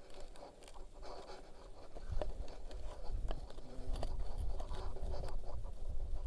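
Scraping and scratching with many light irregular clicks, typical of hand work at a bench, over a low rumble that grows louder about two seconds in.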